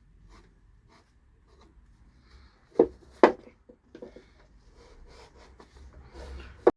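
Thin wooden parts being handled and fitted together: light rubbing and small clicks, with sharp wooden knocks about three seconds in and one just before the end.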